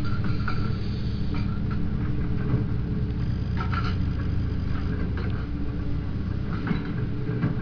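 Komatsu hydraulic excavator's diesel engine running steadily as the machine swings and dumps a bucket of hardcore, with scattered clanks and stony clatter, the busiest about halfway through.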